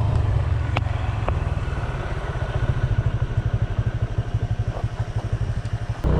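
Motor scooter engine running, then settling into an even putter at idle from about halfway through, with a couple of light clicks about a second in.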